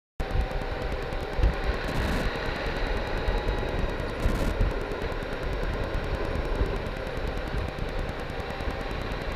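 Honda Gold Wing motorcycle cruising at road speed, heard from the rider's seat: a steady rush of wind and road noise over the running engine, cutting in abruptly just after the start.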